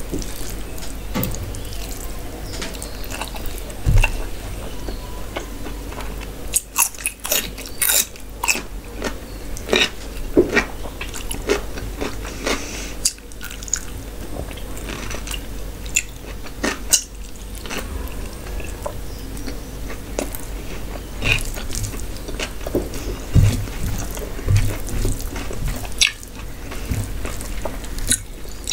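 Close-miked eating sounds: chewing and wet mouth smacks while eating mutton curry and rice by hand, with irregular sharp clicks throughout.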